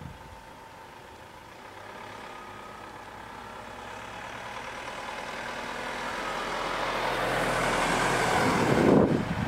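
A vehicle driving past on a tar road: its engine and tyre noise grow steadily louder as it approaches, are loudest as it passes close by near the end, then drop away suddenly.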